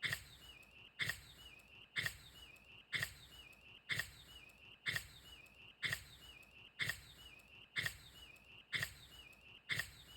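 Shiba Inu dog sneezing over and over, a short sharp sneeze about once a second, each with a brief high squeaky tail.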